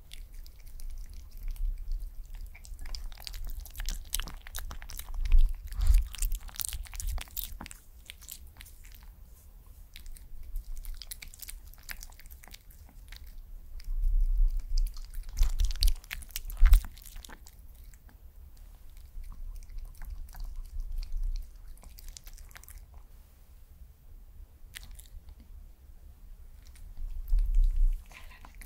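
White Pomeranian chewing and licking soft rice cake off a spoon, close to the microphone: wet clicking chews in several bouts with short pauses between.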